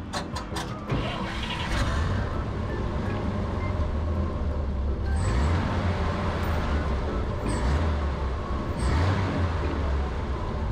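The Dodge WC52's flathead inline-six engine is running with a deep, steady rumble. It swells louder about halfway through and twice more near the end as the accelerator is worked.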